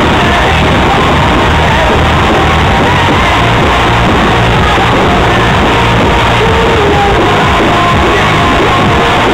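Loud music accompanying a pyromusical fireworks show, steady throughout, with a voice singing or shouting over it.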